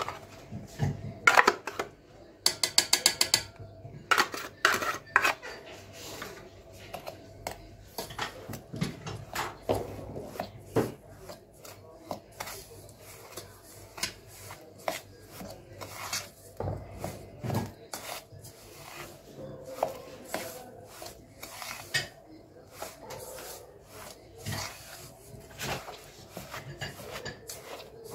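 Metal spoon scraping and clinking against a metal mixing bowl while stirring biscuit crumbs, with a quick run of taps in the first few seconds, then softer scraping.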